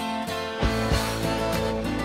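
Background music led by strummed guitar.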